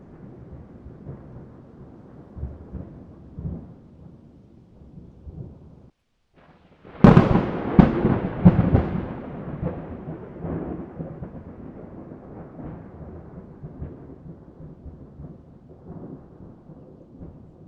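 Thunder rumbling low. After a brief break about six seconds in, a loud, sharp thunderclap with crackling peals that rolls away into a long, slowly fading rumble, then cuts off suddenly.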